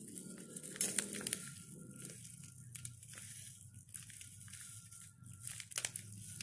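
Plastic sachet of ground black pepper crinkling and rustling as it is squeezed and tipped over a metal spoon, with a few sharp crackles about a second in and again near the end.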